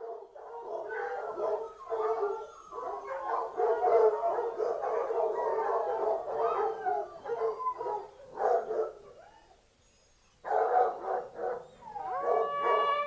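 A pack of foxhounds in full cry, many overlapping howling and baying voices. They die away about nine seconds in, start again briefly, and near the end a hunting horn sounds a rising, then held note over them.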